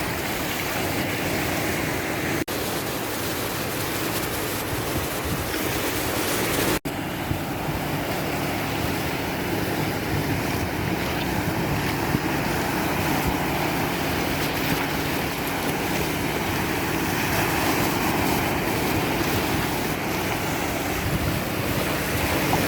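Ocean surf washing steadily, with wind buffeting the microphone. The sound drops out for an instant twice, about two and a half and seven seconds in.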